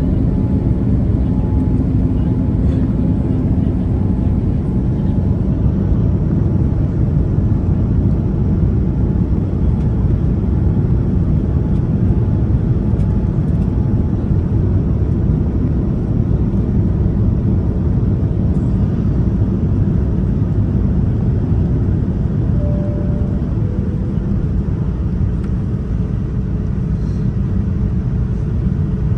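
Steady cabin noise inside a Boeing 787-9 airliner on its descent: a low rumble of airflow and GEnx-1B engines, with faint steady hums. About 23 seconds in, a short higher tone steps down to a lower one that holds.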